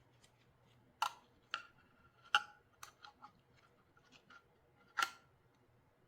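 A series of about nine sharp clicks and light clinks from small hard objects being handled, some with a short metallic ring. The loudest come about a second, two and a half seconds and five seconds in.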